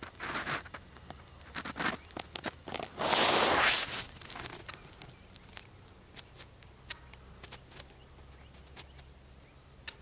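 Rustling and scattered clicks close to the microphone, with one loud hissing rustle lasting about a second, some three seconds in.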